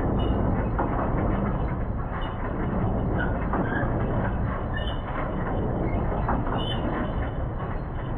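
Ford F-250 pickup truck driving slowly over rough field ground, a steady rumble with rattles and knocks from the body and load.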